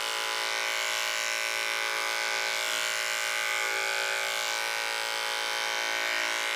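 Electric dog grooming clippers fitted with a #4 blade running at a steady hum as they are drawn lightly over a small dog's cheek and face.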